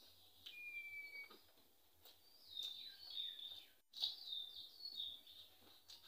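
Birds chirping: runs of short, high chirps that fall in pitch, several a second, with a short steady high beep about half a second in.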